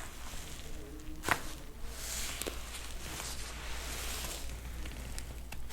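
Chiropractic spinal adjustment: a sharp crack of the joints about a second in, a softer pop a little later, and another crack near the end, with soft rustling between.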